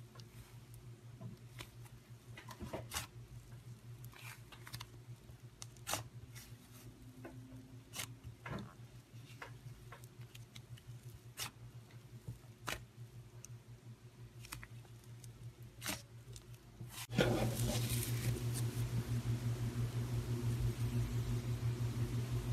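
Slime being kneaded and stretched by hand, making soft scattered pops and clicks. About seventeen seconds in it changes to a louder, dense run of quick squishy clicks as a glossier slime is squeezed, over a low steady hum.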